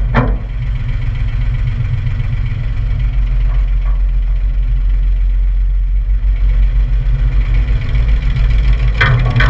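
1966 Zetor 3045 tractor's three-cylinder diesel engine running steadily at low revs, with a few sharp clatters near the end.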